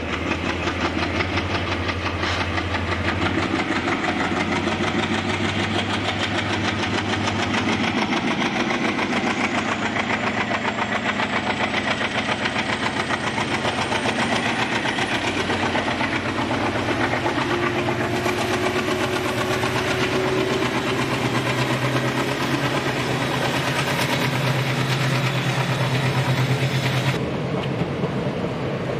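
Diesel locomotive engine running close by with a steady low drone and a fast, even throb. A slowly rising whine comes through the middle.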